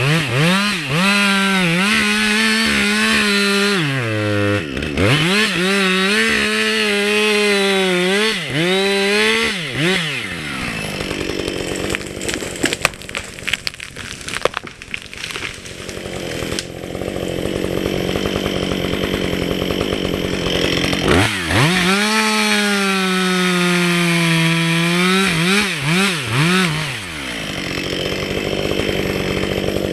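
Chainsaw cutting wood at high revs, its pitch dipping and recovering as the chain bogs in the cut. About ten seconds in it drops to a low, rough running with some sharp cracks. It revs up and cuts again a little past the twenty-second mark, then drops back.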